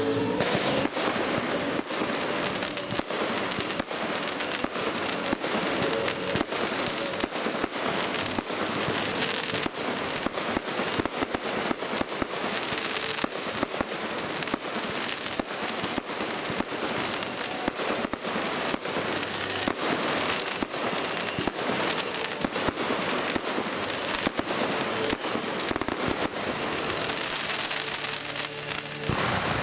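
Aerial fireworks display: a dense, unbroken crackle of bursting shells, many sharp bangs and pops every second.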